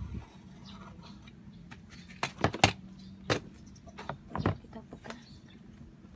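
Sharp clicks and knocks from handling and prying at a digital prayer clock's plastic housing with hand tools, about five in quick succession, the loudest about two and a half seconds in, over a low steady hum.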